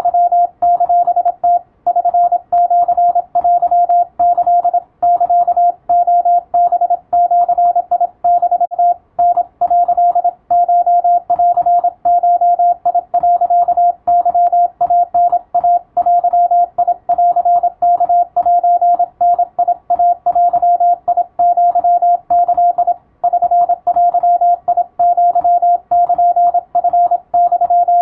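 Morse code (CW) as a single steady beep keyed rapidly on and off in dots and dashes, sending text for code-receiving practice, with only brief pauses between groups.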